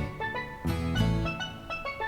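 Background music: bright pitched notes over a steady bass beat.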